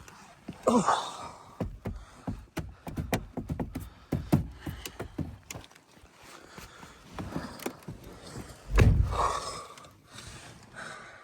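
Irregular clicks, knocks and rustling of things being handled inside a car, with a louder low thump and rush about nine seconds in.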